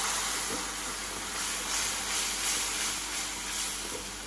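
Onion-tomato masala paste with chilli powder, turmeric and ginger-garlic paste frying in hot oil in a kadai, stirred with a wooden spatula: a steady sizzle that eases slightly toward the end. The paste is being cooked down until the oil separates.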